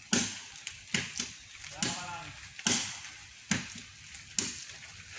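Wood being chopped with an axe, one sharp stroke about every second, with a voice faintly heard between strokes.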